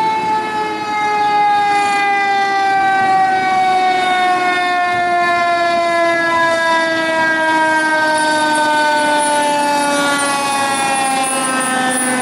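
Fire engine's Federal Q mechanical siren sounding one long, loud wail that falls slowly in pitch as the siren coasts down after being run up.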